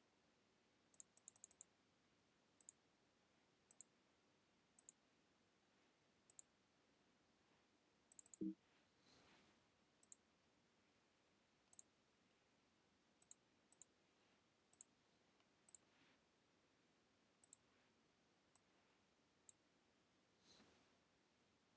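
Computer mouse clicking: sparse, irregular sharp clicks, some single and some in quick pairs or triplets, over quiet room tone. About eight seconds in there is a brief low thud among a cluster of clicks.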